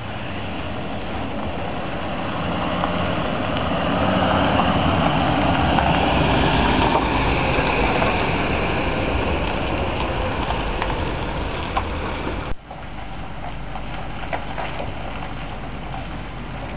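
Pickup truck towing an enclosed trailer driving past on a dirt drive: engine and tyre noise swelling as it comes close, then cutting off abruptly about twelve seconds in to a quieter steady rumble with a few light ticks.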